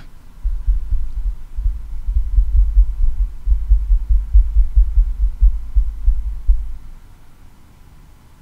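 A deep, low rumble that throbs unevenly, then fades away about seven seconds in.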